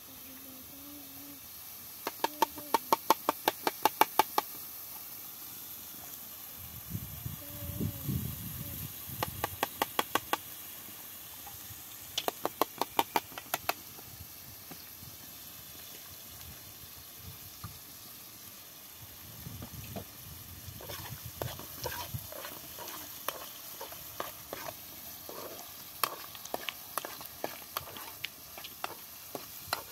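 A metal spoon working in a metal cooking pot: three short bursts of rapid clicking, then irregular scraping and tapping as eggs are stirred, over a faint steady sizzle of frying.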